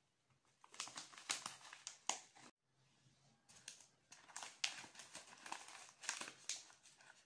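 A plastic fertiliser sachet crinkling and rustling in the hands as powder is shaken out of it into a syringe. The sound is faint, an uneven run of small crackles, broken by a short gap about two and a half seconds in.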